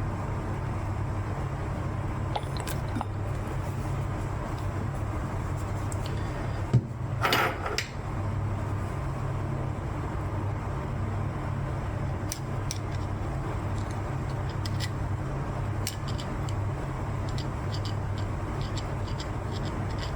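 Small handling noises while oiling the wicks of a disassembled table fan: a sharp click about seven seconds in, followed by a brief hiss, then scattered light ticks, over a steady low hum.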